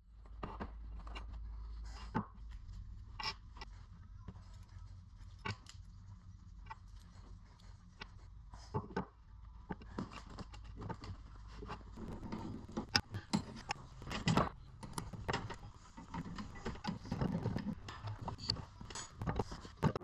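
Clicks, knocks and scrapes of small objects being handled, sparse at first and busier and louder in the second half, over a low rumble.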